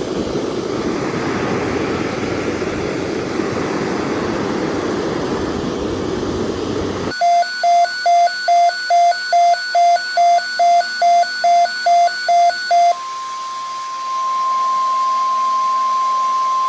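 A steady hiss of radio static, then an electronic weather-radio alarm beeping about fourteen times at a quick, even rate for about six seconds. After that comes one steady high tone, the NOAA Weather Radio warning alarm tone that comes before an alert message.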